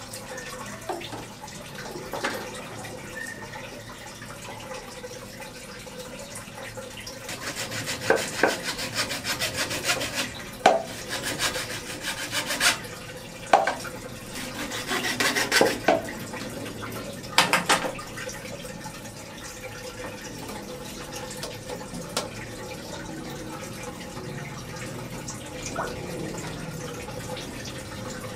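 Steady trickle of aquarium water with a faint hum, and from about 8 to 18 seconds in, bursts of rubbing and scraping with several knocks as a wooden stick is worked against the submersible pump and tank inside the water.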